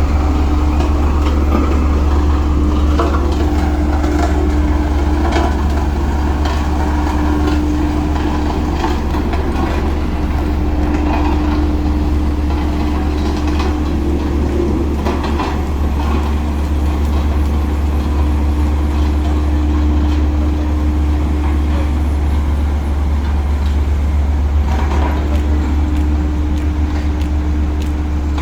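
Heavy earthmoving machine's diesel engine running steadily at work, a deep steady drone with a constant tone above it, with scattered short clanks and knocks.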